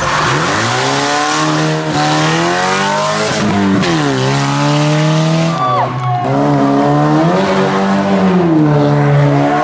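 Rally car engine run hard at full throttle. Its note climbs steadily, then drops sharply at each gear change or lift, several times over.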